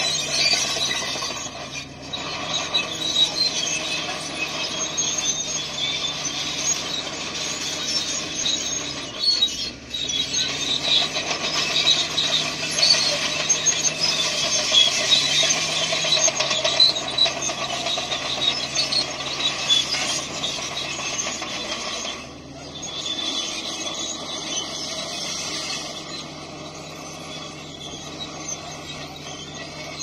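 Crawler bulldozer working: its diesel engine note dips and rises a few times under a steady high squealing and rattling of the steel tracks.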